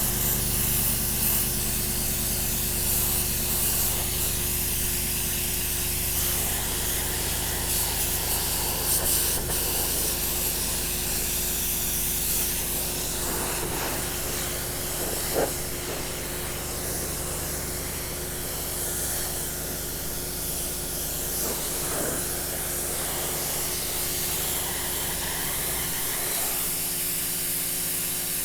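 Prymax 3000 PSI electric pressure washer spraying a 15-degree jet of water onto deck steps. The water jet gives a steady hiss over the low hum of the washer's motor and pump.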